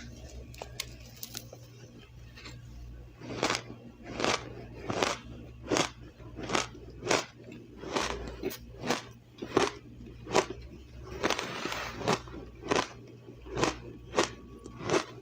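Crushed ice being chewed close to the microphone: sharp crunches about every 0.7 s. The first three seconds are quieter.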